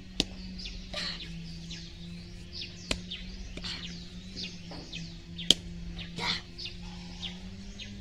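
Small birds chirping over and over in short, quickly falling notes, over a steady low hum. Three sharp clicks break through, the loudest about five and a half seconds in.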